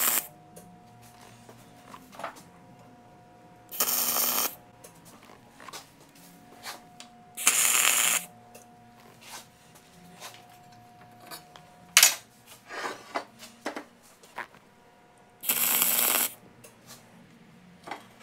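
Tack welding with a Miller-Matic wire-feed welder running dual-shield flux-cored wire: short bursts of crackling arc, each under a second, about 4, 8 and 16 seconds in, with the tail of one at the start. Metal clicks and knocks between the tacks, the sharpest about 12 seconds in.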